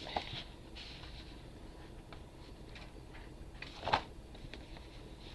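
Faint rustling, crinkling and light taps of packaging and cardstock being handled and unwrapped, with one louder rustle about four seconds in.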